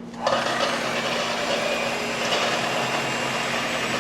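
Electric blender running, blending slow-cooked chicken thighs in broth. It starts abruptly about a quarter second in, then keeps a steady, loud whirring.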